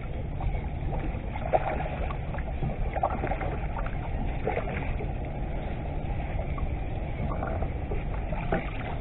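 Steady low rumble of wind and water around a small fishing boat, with water lapping at the hull and a few light clicks and knocks from gear handled on board.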